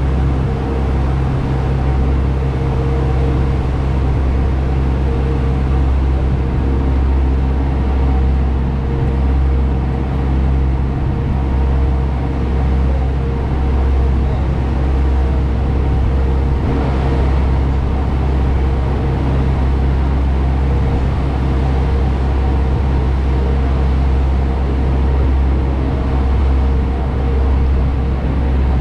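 Engine of a river water bus running steadily at cruising speed, heard from aboard: a deep, unchanging drone.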